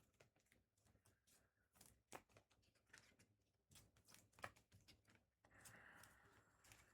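Near silence: faint scattered ticks and rustles of trading cards and packs being handled, with a soft hiss setting in about five and a half seconds in.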